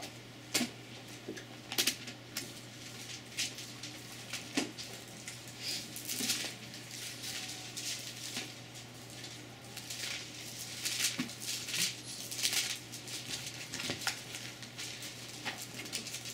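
Thin Bible pages being leafed through, an irregular string of quick papery flicks and rustles.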